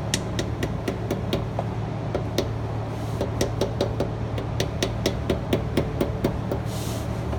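Hammer lightly and quickly tapping a new pinion seal into the housing of a Ford 8.8 rear axle, about four even taps a second with a short pause partway through.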